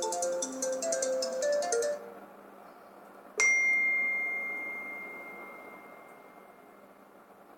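A phone ringtone's melody of quick electronic notes over fast ticking percussion, which stops about two seconds in. About a second later comes a single bell-like alert ding: one clear high tone, struck sharply and fading slowly.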